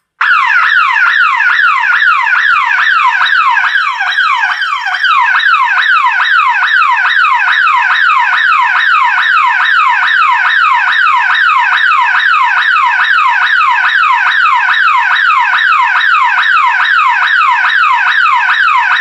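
Burglar alarm bell box siren sounding very, very loud on test, wired straight to a backup battery. It is a rapid, evenly repeating falling sweep that starts abruptly and cuts off suddenly at the end.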